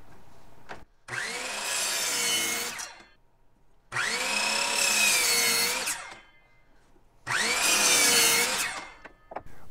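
Electric miter saw cutting through 2x4 lumber three times, each cut about two seconds long with the motor's whine rising as it spins up and dropping away at the end, and near-silent pauses between cuts.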